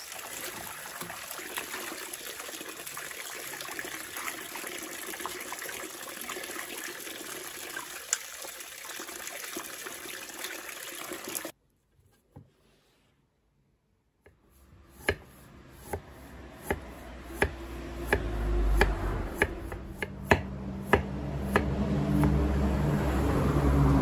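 Water running from a hose into a steel basin and splashing as bellflower roots are scrubbed by hand. After a brief silence, a knife cuts through the roots on a wooden board in a steady series of sharp chops, about one every second or so, over a low hum that grows louder near the end.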